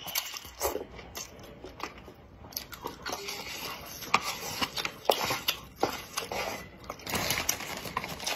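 Close-up eating sounds of spicy instant noodles: wet slurping of noodles and steady chewing with mouth smacks, as in an ASMR mukbang, with irregular short clicks and rustles.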